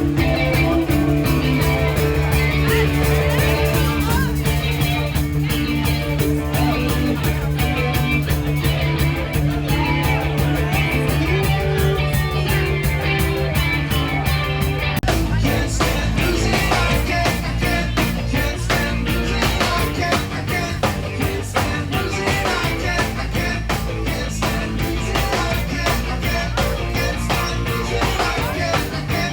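Rock music with guitar over a steady bass line; about halfway through the bass shifts down to a lower note.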